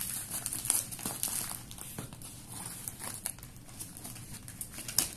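A plastic courier mailer and packing tape crinkling and tearing as a parcel is pulled and cut open, with scissors cutting through the plastic and irregular sharp clicks throughout.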